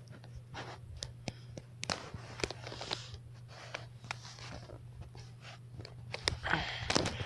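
Knuckles cracking over and over: an irregular run of sharp pops, several a second, over a steady low hum.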